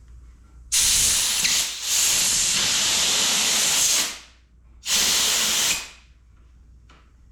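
Aerosol can of silicone spray hissing in two blasts: a long one of about three seconds with a brief break in it, then a shorter one of about a second.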